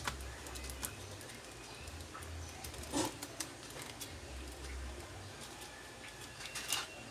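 Scattered light clicks and knocks of a laptop motherboard and plastic chassis parts being handled as the board is unclipped and lifted out, the sharpest about three seconds in and near the end, over a low hum that comes and goes.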